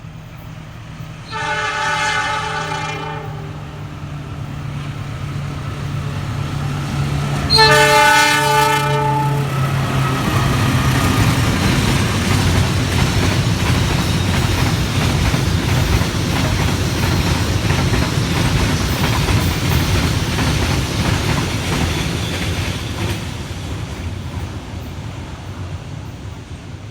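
CC206 diesel-electric locomotive sounding its horn in two blasts, the first about two seconds long and the second a little shorter, over the steady hum of its engine. It then passes with its cement wagons, a loud rumble and rail clatter that fades near the end.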